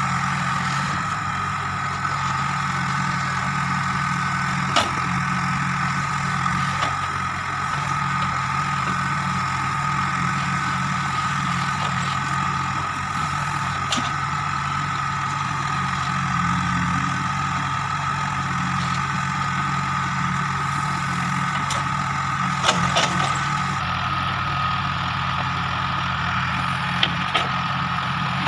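JCB 3DX backhoe loader's diesel engine running steadily, with a few sharp knocks about 5, 14, 23 and 27 seconds in.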